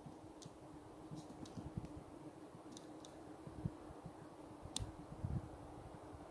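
Faint handling noise from a handheld phone: scattered soft clicks and a few low thumps over a steady faint hum.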